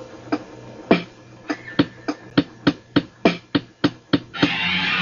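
Trailer music: single sharp percussive hits, spaced out at first and then speeding up to about three a second. Near the end a loud, distorted electric-guitar band comes in.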